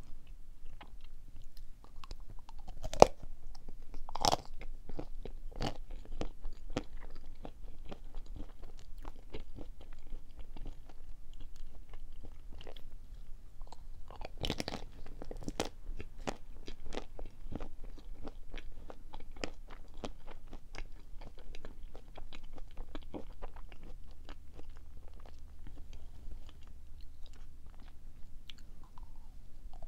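Close-up eating sounds: biting through the chocolate shell of a coconut-sprinkled, chocolate-covered marshmallow treat and chewing it, with many small crackles and wet mouth clicks. The sharpest crack comes about three seconds in.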